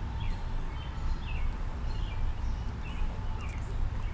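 A small bird chirping repeatedly in short, falling chirps over a low, steady rumble.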